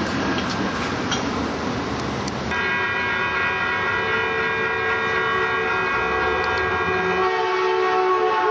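Cars passing over a railroad grade crossing, then an approaching Caltrain train's horn sounding one long, steady chord from about two and a half seconds in. The chord starts to fall in pitch near the end as the train nears the crossing.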